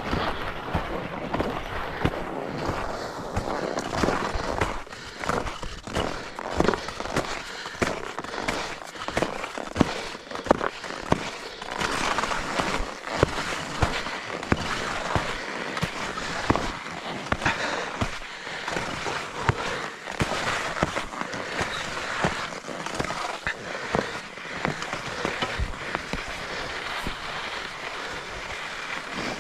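Skis running downhill on snow: a constant scraping hiss from the bases and edges, broken by many sharp clatters and knocks as they chatter over uneven snow.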